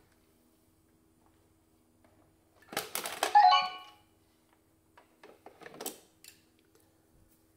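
Plastic clicks and knocks as the lid of a Vorwerk Kobold VR300 robot vacuum is handled and flipped open, with a short ringing, chime-like tone among the first cluster of clicks about three seconds in. A faint steady hum lies underneath.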